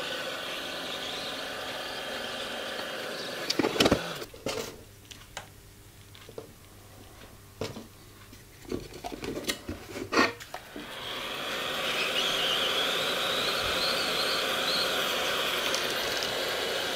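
Heat gun blowing while shrinking heat-shrink tubing over soldered wire joints. It cuts off about three and a half seconds in with a couple of loud clunks, a few light handling clicks follow, and it starts blowing steadily again about eleven seconds in.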